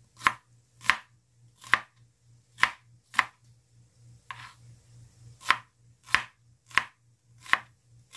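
Chef's knife slicing a red onion on a wooden cutting board: about ten sharp knocks of the blade against the board at an uneven pace, roughly one every three-quarters of a second, one of them softer near the middle.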